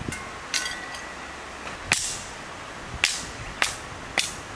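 Hammer blows driving a stick of firewood down onto the wedge of a cast-iron Kindling Cracker, splitting it into kindling: six sharp knocks, the first two with a short metallic ring.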